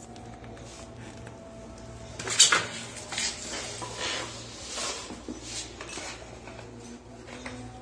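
Irregular clattering and rustling of hard fittings and packaging being handled, starting about two seconds in and dying away near the end, over a steady low hum.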